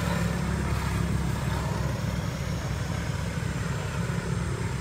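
An engine running steadily at idle, a low, even rumble.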